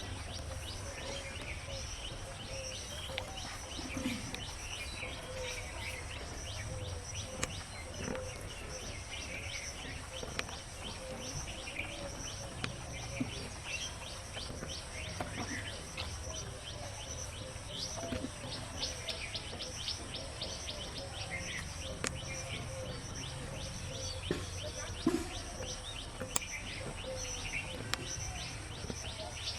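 Small birds chirping on and off over steady low background noise, with a few brief clicks.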